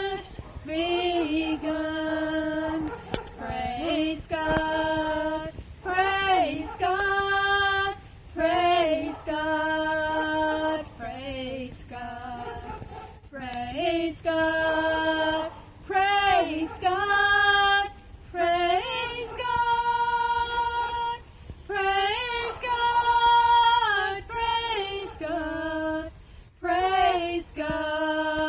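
A woman singing a hymn solo and unaccompanied, in phrases of held notes with vibrato.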